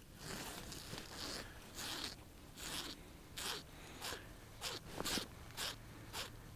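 Soft, faint swishing rustles, one about every two-thirds of a second: winter clothing and gear moving as an ice-fishing rod is jigged over the hole.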